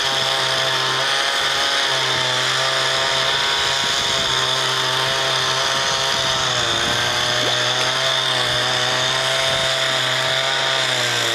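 Two-stroke chainsaw running at high revs while cutting into a tree, its pitch sagging briefly a few times as the bar takes the load.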